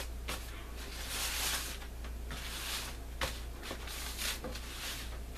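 Crepe paper rustling and crinkling as it is handled and smoothed, with a few light clicks of the cards being moved. A steady low hum runs underneath.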